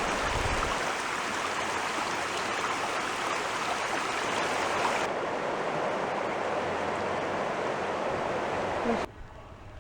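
Steady rush of flowing river water, cutting off abruptly about nine seconds in.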